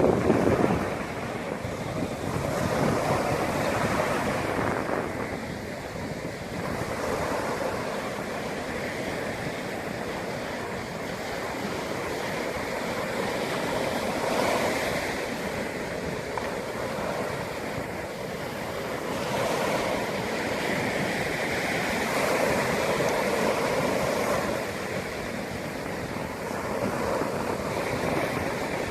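Sea waves breaking and washing on the shore, the surge rising and falling in swells every several seconds, loudest at the start.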